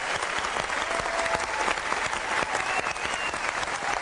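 Studio audience applauding steadily at the close of a live song.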